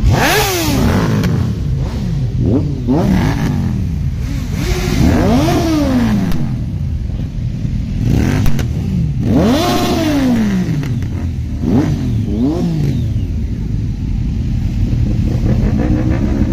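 Sport motorcycle engine revved repeatedly while standing still: about eight throttle blips, each rising sharply in pitch and falling back to idle, with a sharp crack about eight seconds in.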